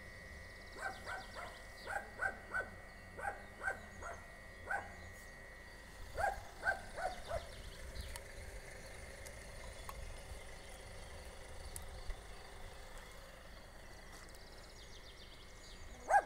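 A dog barking, a few short barks at a time in quick runs, through the first half, then falling quiet. A faint steady high tone sits beneath.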